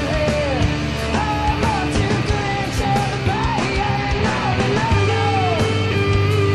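Rock music with regular drum hits and a melody line that bends up and down in pitch.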